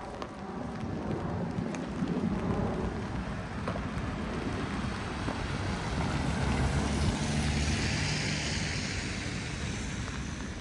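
A vehicle passes on a wet street, its low engine rumble and the hiss of tyres through water building to a peak about two-thirds of the way in and then fading, over steady rain.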